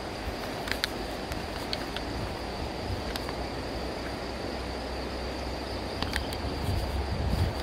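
Steady rushing of a fast mountain river, with wind buffeting the microphone, stronger near the end, and a few light clicks.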